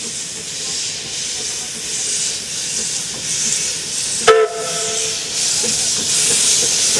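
Narrow-gauge steam tank locomotive moving slowly with its cylinder drain cocks open, steam hissing steadily. About four seconds in, a short toot on a steam whistle.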